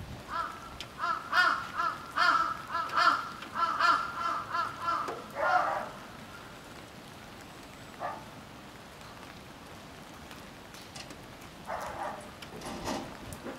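Crows cawing: a rapid run of loud, harsh caws about two a second, then a few single caws later on.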